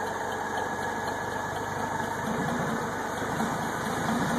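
Clark forklift's engine running steadily with a rapid, even firing beat as it carries a heavy load forward. It gets a little louder and heavier about two seconds in.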